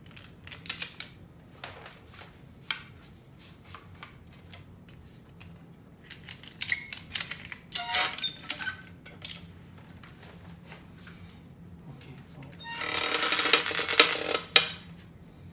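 Ratchet strap being fastened: scattered metal clicks and rattles from the buckle, then near the end a long buzzing zip as the nylon webbing is pulled through the ratchet buckle.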